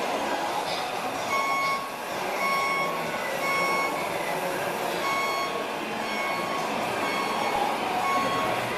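Reversing alarm from an RC model truck's electronic sound module, beeping in a steady rhythm about once a second with each beep lasting about half a second, over a continuous rumble of model truck engine sound.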